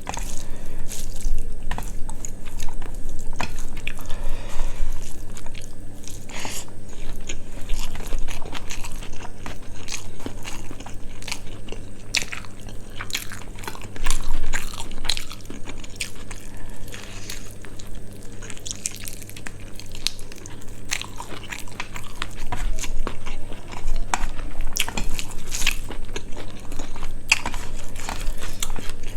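Close-miked mouth sounds of eating quail curry with rice: chewing and biting with many irregular crunchy clicks.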